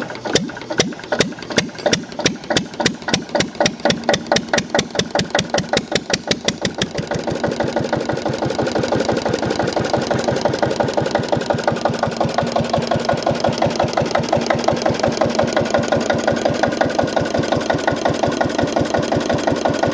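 Old single-cylinder diesel stationary engine with a large flywheel, hand-crank started: it fires in separate sharp beats that come quicker and quicker, then settles by about seven seconds in into a steady, even running beat.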